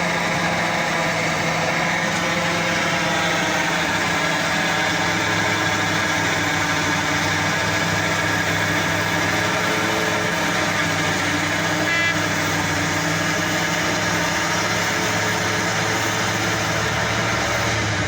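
Large diesel engine of heavy mining equipment running steadily under load. About twelve seconds in, a short high beep sounds once.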